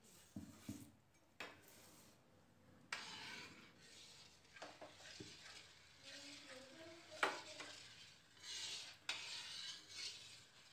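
Metal spatula stirring and scraping melting ghee around an iron kadhai, in irregular strokes with a few sharp knocks of metal on the pan. The loudest knock comes about seven seconds in.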